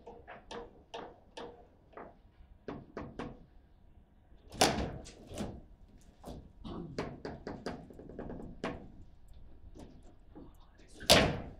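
Table football in play: the hard ball and plastic player figures clacking, and the rods knocking, in quick irregular knocks. Two much louder hard strikes come about four and a half seconds in and near the end.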